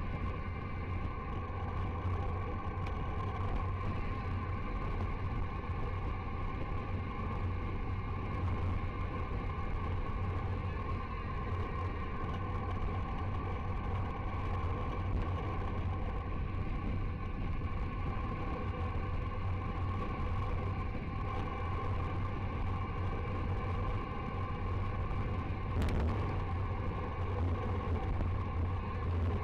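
Steady wind rush and tyre-on-asphalt rumble from a bicycle descending at about 60 km/h, with a deep, constant low rumble underneath. A single short knock comes near the end.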